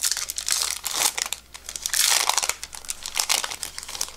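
Crinkling and tearing of a 1996 Score baseball card pack's wrapper as it is pulled open by hand. The crackling rustle is loudest about two seconds in and stops near the end.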